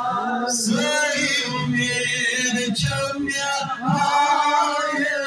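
A man singing a devotional chant into a microphone, holding long drawn-out notes that waver in pitch, with a short breath about three and a half seconds in.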